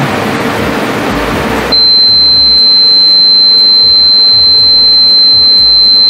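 Electronic dog-whistle test sound: one steady, loud, high-pitched pure tone that starts about two seconds in, after a brief hiss of background noise.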